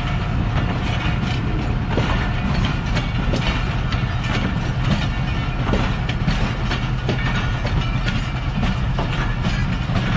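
Passenger train pulling out of the station, its coaches rolling past with the wheels clicking over rail joints above a steady low rumble.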